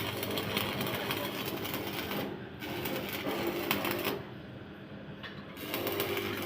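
Welding arc crackling and buzzing in a fast, dense crackle over a steady electrical hum. It cuts out briefly twice, once for a moment and once for about a second, as the arc is stopped and struck again.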